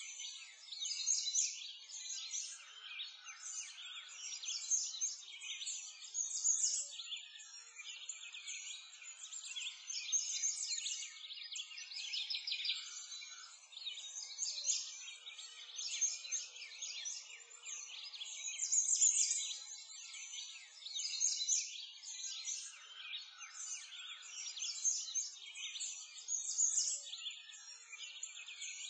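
Dense chorus of many small birds chirping and twittering continuously, all high-pitched, with no low sounds beneath.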